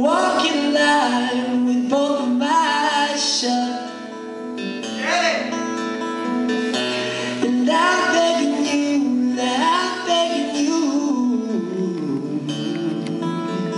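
A man singing a slow song into a microphone, accompanying himself on acoustic guitar: a live solo acoustic performance.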